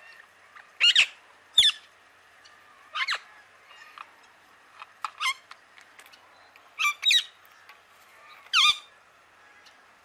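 Parakeets squawking: about nine short, harsh calls, mostly in pairs, every second or two.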